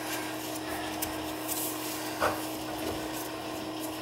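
Extractor tool turning a broken-off threaded piece out of a corroded plumbing fitting: faint scraping and rubbing of metal, with one sharper knock about two seconds in, over a steady low hum.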